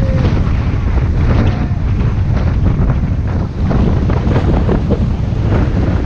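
Whitewater rapids of the Indus rushing and splashing around an inflatable raft as it is paddled through, with heavy wind buffeting on the microphone.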